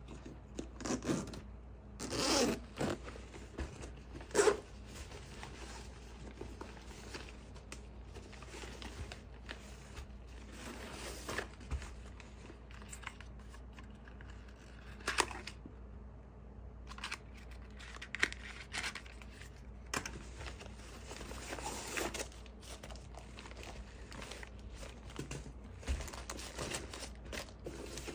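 Unpacking handling noise: a zipper rasp as the fabric drone shoulder bag is opened about two seconds in, then scattered rustles, taps and scrapes of fabric and stiff packaging as items are taken out and handled.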